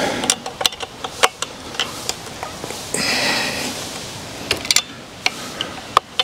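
Scattered clicks and light knocks of a Stihl chainsaw being handled while its engine is off, with a brief rustle about three seconds in.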